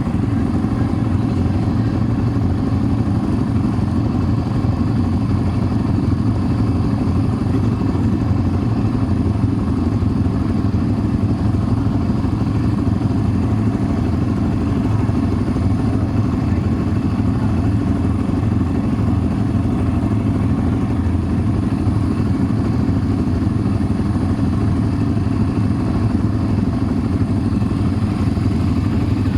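ATV engine running steadily under way, an even low rumble with no change in pitch throughout.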